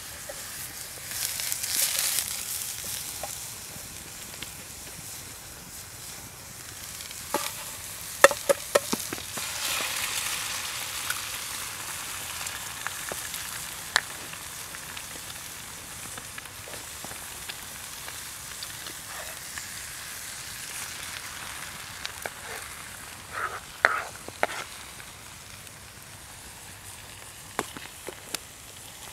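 Egg and mushrooms frying in butter in a pan over a campfire, a steady sizzle that surges loudly about a second in as the egg goes into the pan. A few sharp clicks and taps come in short clusters, once early and once near the end. The pan is over-hot, burning the butter.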